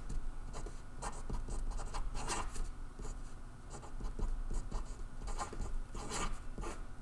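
Marker pen writing on paper: short, irregular scratching strokes as letters are written.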